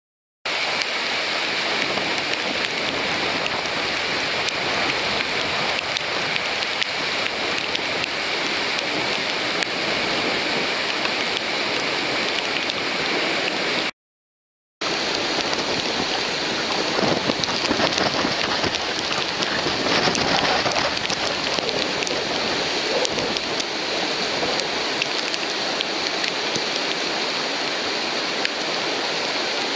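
Whitewater of a river standing wave, a steady rushing roar of churning water. The sound cuts out for under a second about halfway through.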